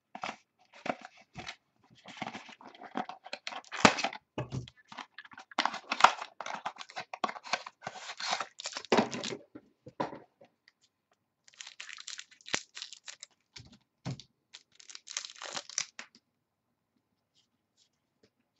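Foil wrapper of a pack of football trading cards being torn open and crinkled, in irregular crackles for about ten seconds, then another spell of crinkling after a short pause, and quiet for the last couple of seconds.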